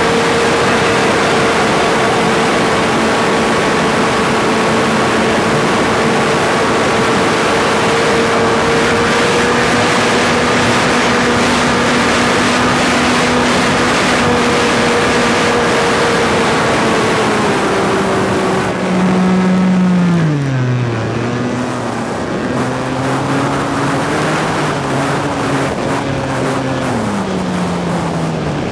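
Engine of an RC PC-9 model plane, heard from on board with air rushing past: it runs at a high, steady pitch at speed, then is throttled back about two-thirds of the way through, its pitch dropping sharply. It runs slower with small rises and falls after that, and is throttled down again near the end.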